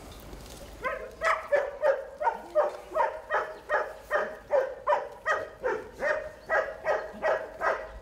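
A dog barking in a fast, steady run of short barks, about four a second, starting about a second in.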